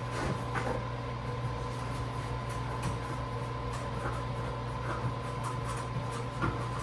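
Steady room hum with a steady faint high whine, and a few faint ticks and taps from handling a sofa leg being screwed on by hand.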